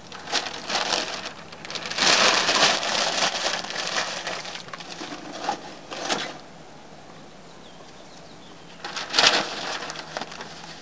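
Paper crumpling and rustling with clattering, as newspaper and charcoal briquettes are loaded into a metal charcoal chimney starter. The noise comes in bursts, stops for a couple of seconds and picks up again near the end.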